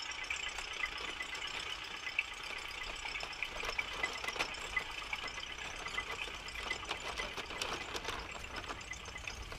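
Plastic toy tractor and three-axle tipping trailer wheels rolling over sand and grit, giving a steady crunching with many small, irregular clicks.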